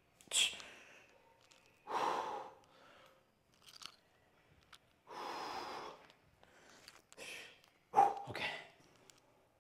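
A man's forceful breaths and exhales while he holds flexed poses, about five separate bursts with quiet gaps between them, the longest a drawn-out exhale midway and the loudest near the end.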